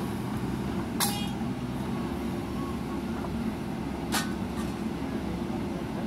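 Diesel engine of a JCB 3DX backhoe loader running steadily as the machine works its hydraulic arm, with two sharp metallic clanks from the bucket and arm linkage, about a second in and again about four seconds in; the first rings briefly.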